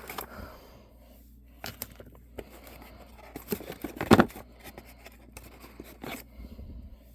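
Small metal engine lifters being handled and set down: scattered light clicks and rustling, with one sharper knock about four seconds in.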